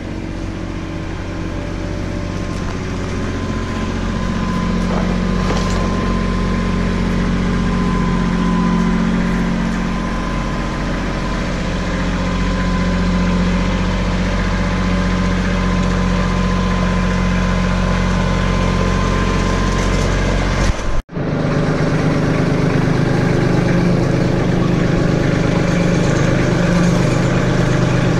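Tractor engine running steadily at low speed while it moves a hoisted engine in, with a momentary dropout about three quarters of the way through.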